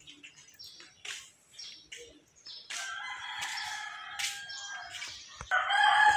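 A rooster crowing in one long drawn-out call about three seconds in, with a louder short call near the end; small birds chirp briefly before it.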